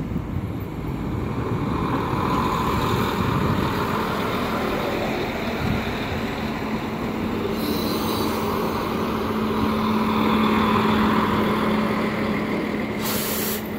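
PESA SA134 diesel railcar running slowly past close by, its engine and running gear giving a steady hum with a fainter whine above it. Brief hisses come about eight seconds in and again near the end.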